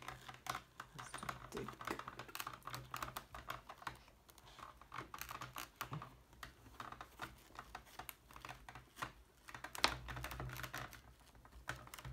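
Hands pressing a motorcycle helmet's fabric liner and plastic parts into place: an irregular run of small clicks, taps and rustles, with one sharper knock about ten seconds in.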